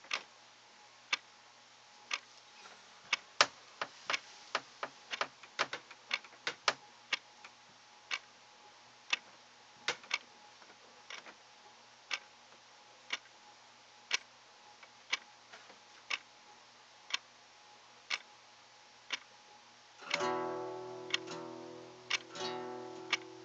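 Sharp ticks about once a second, with a quicker run of extra clicks between about three and seven seconds in. About twenty seconds in, an acoustic guitar starts playing plucked notes.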